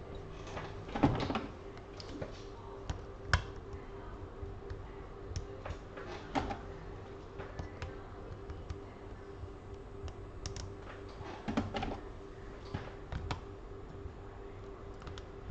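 Scattered clicks and knocks of clamps and tools being handled on a workbench, a few sharp ones standing out, over a faint steady hum.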